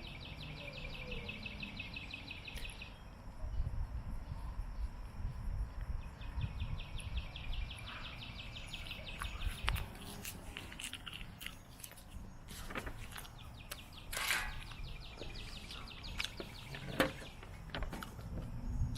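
Insects trilling in repeated bursts of rapid pulses, with scattered close-up clicks and smacks of someone eating sushi, busiest in the middle.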